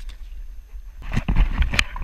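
Low rumble of wind on the microphone, then from about a second in a rapid run of sharp knocks and clatter against a small aluminium boat.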